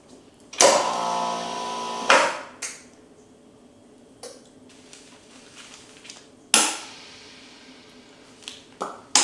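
Avid Armor GS41 commercial chamber vacuum sealer running a seal-only cycle to close one end of a bag cut from the roll. The lid shuts with a clack, the machine runs with a steady hum for about a second and a half, then stops with another clack. Two more sharp clacks follow, one of them near the end.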